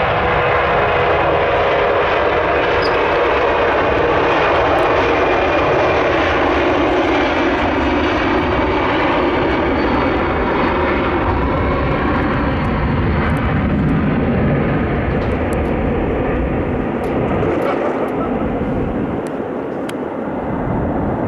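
Boeing C-17A Globemaster III's four Pratt & Whitney F117 turbofans at takeoff power during the takeoff roll: a loud, steady jet noise that eases off a little in the last few seconds as the aircraft pulls away and rotates.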